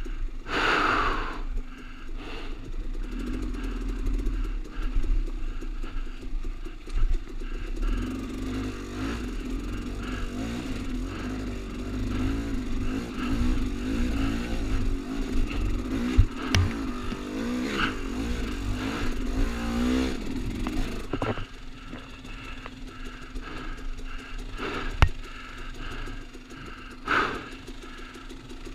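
KTM enduro dirt bike engine running at low revs, the revs rising and falling as it picks its way over loose rock, with a couple of sharp knocks of rock against the bike.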